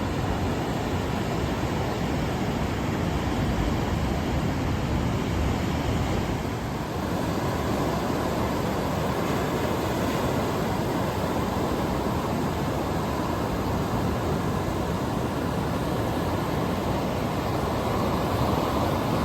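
Ocean surf breaking on a beach: a steady, even rush of waves with no let-up.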